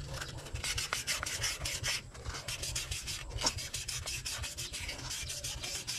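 Sandpaper rubbed by hand in quick back-and-forth strokes inside a motorcycle front wheel hub, a rasping scrape with brief breaks about two and three seconds in. This is the bearing seat being sanded smooth so the new bearing and oil seal can be fitted.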